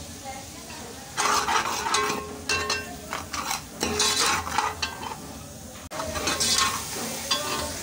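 Steel ladle stirring and scraping fried onions and ground spices around a metal pot in hot oil, clinking against the pot, with the oil sizzling. The stirring starts about a second in and goes in quick repeated strokes.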